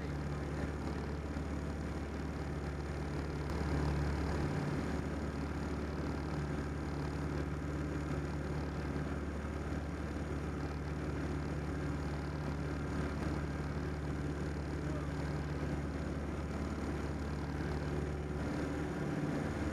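The 1946 Piper J-3 Cub's engine and propeller droning steadily in flight, heard from inside the small cabin, with a slight swell about four seconds in.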